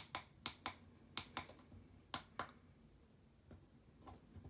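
Push buttons on the back of a Meross digital alarm clock clicking as they are pressed to step the alarm hour up. A series of short clicks, several in quick pairs, over the first two and a half seconds, then a pause and two fainter clicks near the end.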